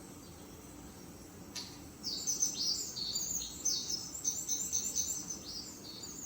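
Birds chirping: a quick run of short, high sweeping chirps that starts about two seconds in, after a near-quiet stretch with a single click.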